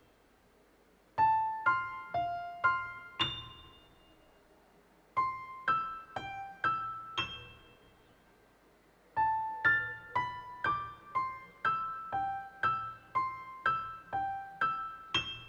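A piano-like keyboard plays a light melody one note at a time, each note ringing and fading. It comes in three phrases: a short one of five notes, a second of about six, and a longer run near the end, with brief pauses between them.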